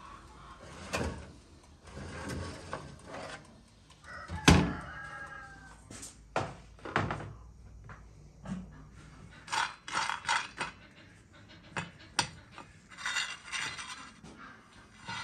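A countertop toaster oven being opened and a metal baking tray of clay pots taken out and handled: a run of knocks, clatters and small clinks. The loudest is a sharp knock with a brief metallic ring about four and a half seconds in.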